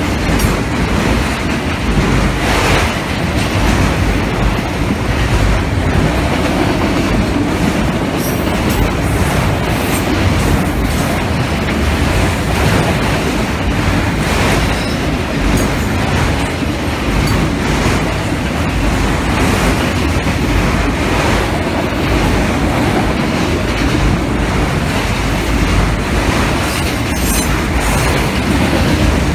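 Freight train of autorack cars rolling past close by: a steady rumble and clatter of steel wheels on the rail that holds at one level throughout.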